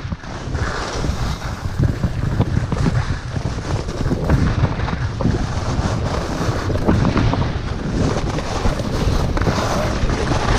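Wind rushing over the microphone of a skier moving downhill, mixed with the hiss and scrape of skis sliding over packed snow. It is continuous and uneven, with the low wind rumble the strongest part.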